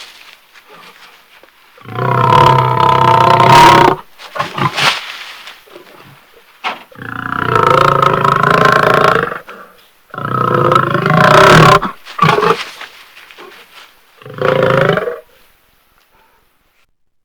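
Beast growl sound effects: four loud, deep growling roars, each lasting one to two seconds, the last one shorter, with brief quieter snarls between them.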